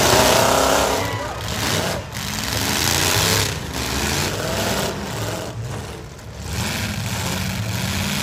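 Full-size V8 pickup truck engines revving hard in a demolition derby, their pitch rising and falling again and again. The loudest moment is a burst of noise in the first second, as the trucks collide.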